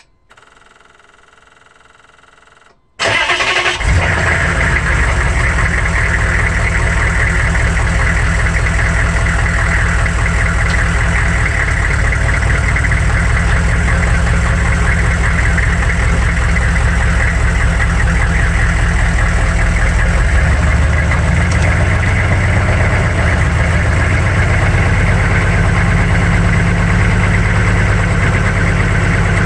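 A 6.5-litre turbo-diesel V8 in a 1999 GMC 3500 pickup starting about three seconds in, then running steadily with a low, rhythmic diesel beat, heard from underneath the truck. The sound grows heavier about two-thirds of the way through as the truck begins to move.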